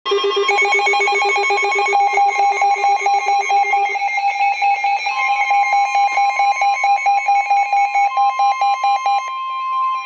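Several NOAA weather alert radios going off at once, their alert beeps pulsing rapidly at different pitches and overlapping. About halfway in, the steady warning alarm tone of the weather broadcast joins the beeping.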